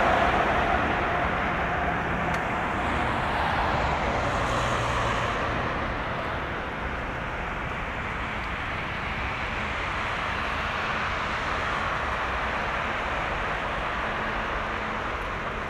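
Jet aircraft engines heard across an airfield: a steady rushing noise that slowly fades over several seconds.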